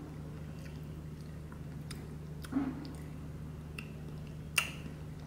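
Faint mouth sounds of someone tasting a spoonful of yogurt: a few soft lip smacks and clicks, over a steady low hum.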